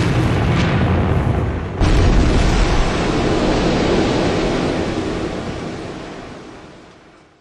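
Explosion sound effect: a blast already sounding, with a second, louder boom about two seconds in, then a long rumbling tail that fades away near the end.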